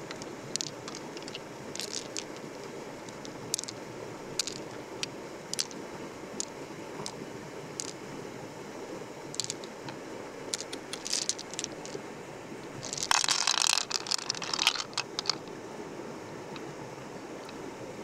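Short crunching and scraping clicks over a steady low wash. A louder run of crackling scrapes comes about thirteen to fifteen seconds in.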